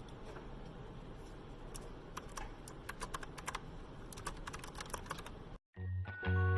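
Typing on an Azio Retro Classic mechanical keyboard: irregular key clicks, sparse at first and quickening into a run of keystrokes, which stop suddenly about five and a half seconds in. Music begins right after.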